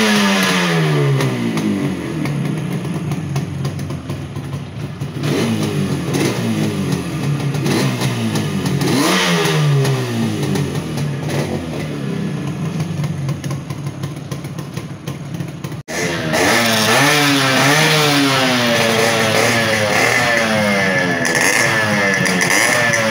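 Two-stroke Yamaha motorcycle engine, just cold-started, revved in repeated blips with the revs falling back toward idle each time. About 16 seconds in, a sudden cut brings in another two-stroke Yamaha engine being revved up and down.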